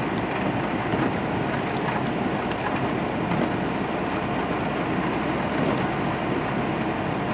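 Steady road noise of a semi truck driving on wet pavement, heard from inside the cab: the engine's drone mixed with the hiss of tyres on the wet road.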